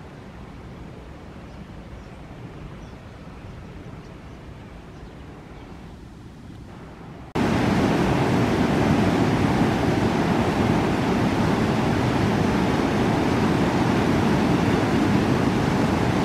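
A quieter low rumbling noise, then after a sudden cut about seven seconds in, the loud steady rush of the flood-swollen Lužnice river pouring over a stone weir into churning white water.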